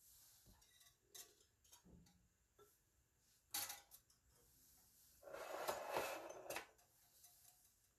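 Silicone spatula stirring cream sauce in a stainless steel pot, with light knocks and scrapes against the pot. A sharper knock comes about halfway through, then a louder scraping stretch of about a second and a half.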